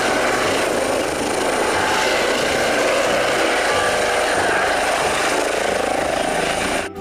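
Eurocopter EC135 air ambulance helicopter hovering close to the ground: a steady, loud rotor and engine noise with a thin high whistle over it, cutting off suddenly near the end.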